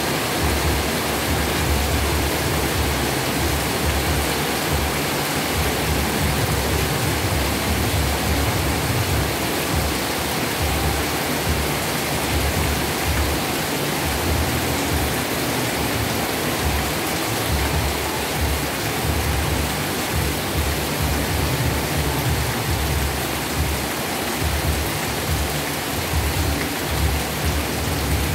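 Heavy rain pouring down steadily, a dense even hiss with an uneven low rumble underneath.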